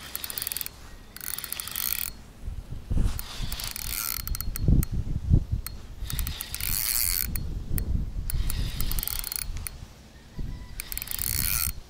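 Spinning reel ratcheting in about six bursts of rapid clicking, each around a second long, as a hooked carp is played on a bent rod. A few low thumps sound between the bursts.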